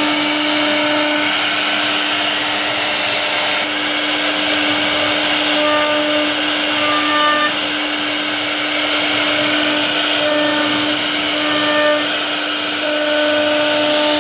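CNC router spindle running steadily as its bit carves a relief pattern into a wooden panel: a constant whine over a cutting hiss, with brief higher tones coming and going.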